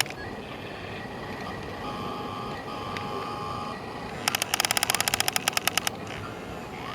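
Excavator at work: a steady mechanical hum with a faint whine twice, then about halfway in a rapid series of sharp knocks, about eleven a second, lasting about a second and a half.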